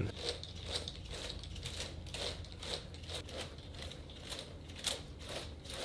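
Plastic K'nex coaster elevator mechanism clicking as its carriage is raised, with light ratchet-like clicks about twice a second.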